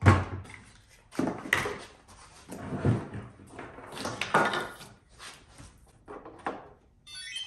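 Tools being handled on a plywood workbench: a cordless drill set down and a corded 3M Xtract random orbital sander put on the plywood and plugged in, giving a series of knocks and clunks, the loudest right at the start. A brief high hiss comes near the end.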